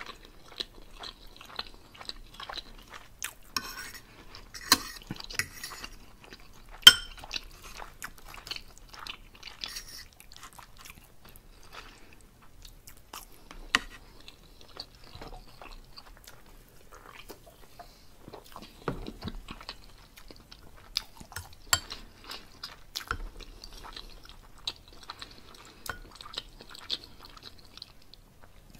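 Close-miked chewing of pork roast and vegetables, with crackly mouth sounds throughout. Several sharp clinks of a fork and spoon on the plate and bowl stand out, the loudest about seven seconds in.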